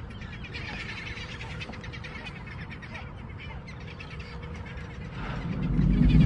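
A flock of seabirds calls over open water, many short cries overlapping, above a steady low rumble of wind and water. A louder low sound swells in near the end.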